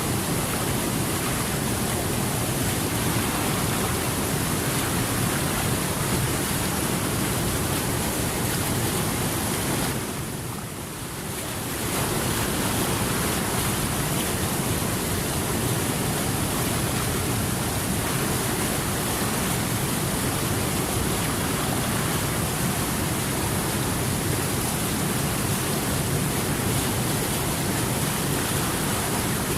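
Steady rushing water: a continuous, even wash of sound that dips briefly about ten seconds in.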